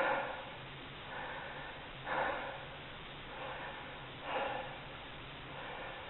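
A person breathing audibly in an even rhythm: a louder breath about every two seconds, with a softer one between.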